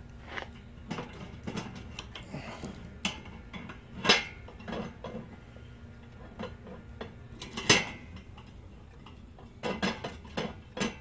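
Steel rotisserie spit on a kettle grill's rotisserie ring, clinking and knocking against its mounts and forks as it is handled and turned by hand to find its heavy side. The clicks come irregularly, with two sharper knocks about four and eight seconds in and a quick cluster near the end.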